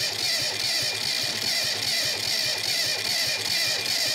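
Starter motor cranking a four-cylinder engine in an even, rhythmic chug that never catches, even with butane gas fed into the intake; the crew had found little compression in cylinder 4.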